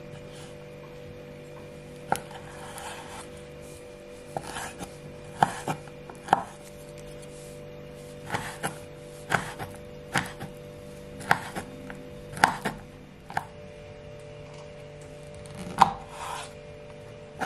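Chef's knife chopping soft pitted dates on a wooden cutting board: about twenty sharp, irregular knocks of the blade on the board, coming in short runs.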